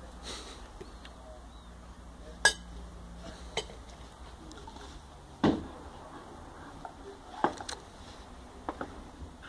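Long-handled brush knocking and clattering as a springer spaniel carries and shakes it: about five separate sharp knocks, the loudest about two and a half and five and a half seconds in.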